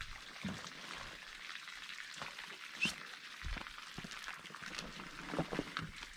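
Rooftop tent's travel cover being unclipped and pulled off: fabric rustling with scattered light clicks, and one sharper click about three seconds in.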